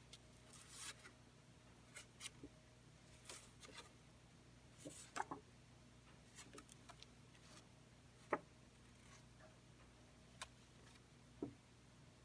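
Faint handling of paper cards and kit packaging: scattered soft clicks and brief rustles, the sharpest about eight seconds in, over a low steady hum.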